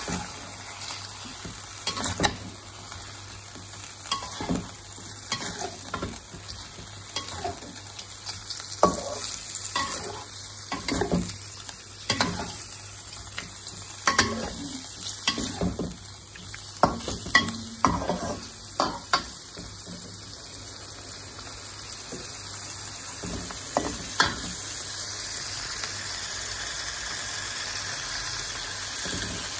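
Beef liver with onion and ginger frying in oil in a wok, sizzling steadily, while a metal spatula scrapes and knocks against the wok at irregular moments as the pieces are stirred and turned. The spatula strokes stop about 25 seconds in, leaving only the steady sizzle.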